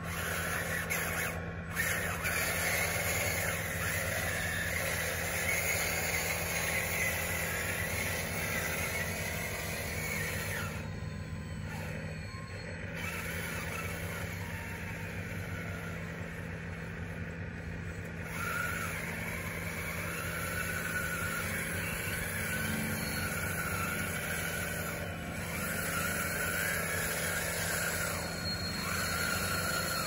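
Electric motors and gearing of a radio-controlled construction model whining as it is driven, the pitch rising and falling with the throttle, over a steady low hum.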